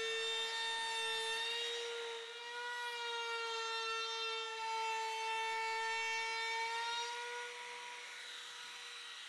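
Milwaukee cordless compact router running at full speed with a bead-profile bit, cutting a bead molding along the bottom edge of a wooden apron: a steady high-pitched whine.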